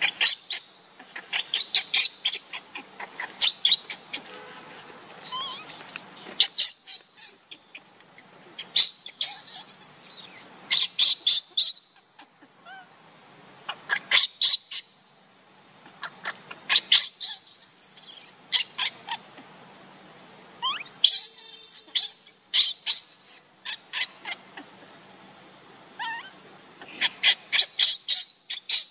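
Baby macaque crying in repeated bursts of rapid, high-pitched squeaks and squeals, each burst about a second long: distress calls.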